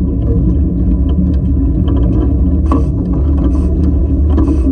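Steam locomotive running gear rolling slowly over the rails, a steady low rumble with scattered clicks and clanks from wheels and rods, and two brief hisses, one in the middle and one near the end.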